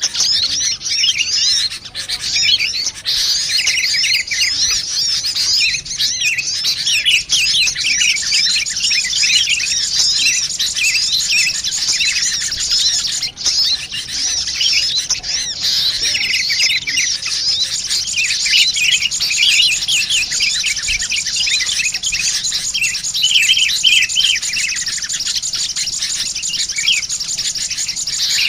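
Bird-lure recording of sunbird calls mixed with agitated sooty-headed bulbul calls: dense, continuous high-pitched chirping and rapid twittering from several birds at once.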